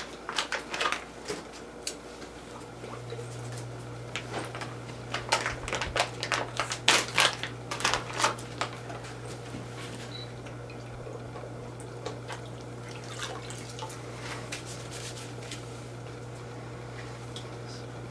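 Foil pouch of a fiberglass casting tape roll torn open and crinkled in gloved hands, a run of sharp crackles, then quieter dripping and splashing as the roll is dipped in water before wrapping.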